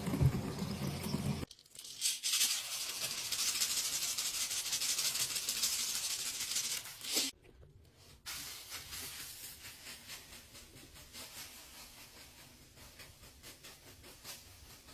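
Soapy laundry suds fizzing and crackling with a steady hiss as the bubbles pop, broken by edit cuts; after a short break about halfway through, the fizzing comes back quieter and fades away.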